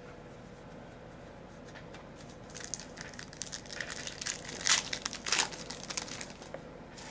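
Foil trading-card pack wrapper crinkling and tearing as it is pulled open, starting about two and a half seconds in, with two sharper rips near the middle.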